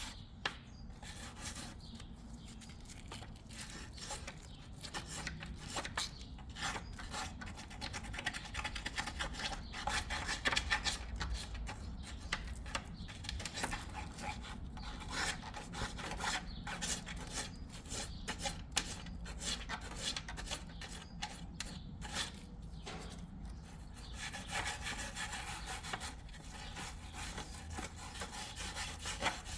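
Carbon deposits being scrubbed off a 1999 GMC intake manifold by hand: a continuous run of quick, uneven, rough rubbing strokes.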